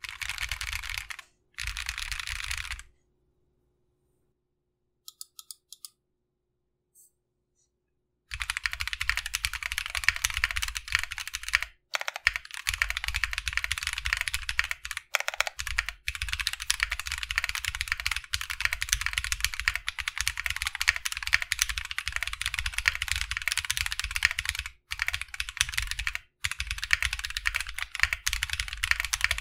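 Typing on a mechanical keyboard with Feker "Holy Panda" clone tactile switches, lubed with Krytox 205g0, on a polycarbonate plate in a Tofu65 aluminium case with Cherry-profile keycaps. Two short bursts of keystrokes, then about five seconds of near silence with a few faint clicks, then fast continuous typing with brief pauses for the rest.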